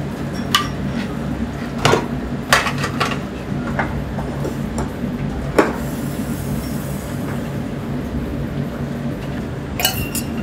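Metal cooking utensils clinking and tapping against a small pan and bowls while oyakodon is cooked over a gas burner: a handful of sharp clinks, the loudest about five and a half seconds in, over a steady low hum.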